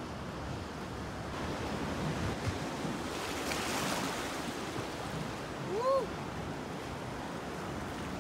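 Sea waves washing on the shore with wind on the microphone, swelling a little about three to four seconds in. A brief rising-and-falling cry about six seconds in.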